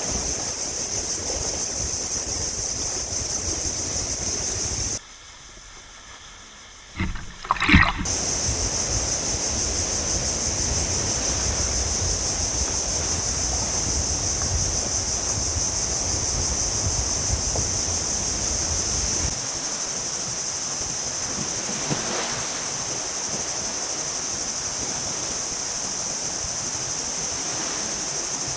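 Sea waves and wind on a beach, with a steady high insect drone on top. The sound drops away briefly about five seconds in, then comes back with a couple of sharp knocks, and the low surf rumble thins out about two-thirds of the way through.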